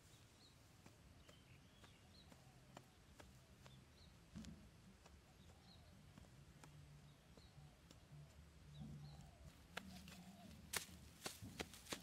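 Very quiet outdoor ambience with faint, repeated high chirps, then about ten seconds in a quick run of sharp knocks: a large knife blade chopping into dry, hard soil.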